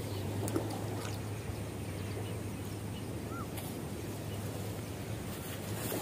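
Outdoor lakeside ambience: wind on the microphone as a steady low rumble and hum, with a few faint clicks.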